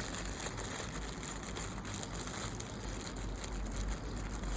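Plastic parts bag rustling and crinkling as small white plastic wire-connector parts are taken out of it.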